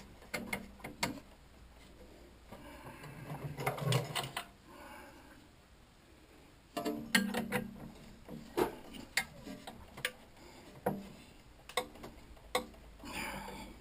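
Scattered light metallic clicks and knocks from tools being handled while an end mill is fitted in a milling machine collet.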